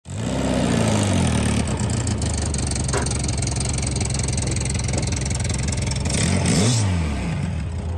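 Air-cooled flat-four engine of a 1960 VW Beetle, built out to 2332 cc, running on a steady idle. Its revs settle down in the first second or so, and it is given one quick rev and let fall back about six seconds in.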